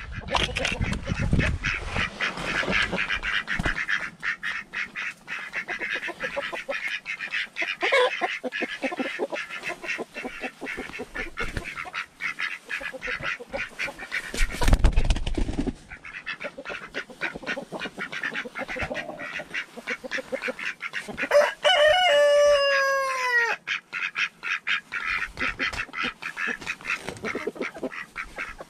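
A flock of poultry calling in a coop: constant clucking and chatter, with one loud call falling in pitch about two-thirds of the way in. A loud bump or rustle of handling comes about halfway.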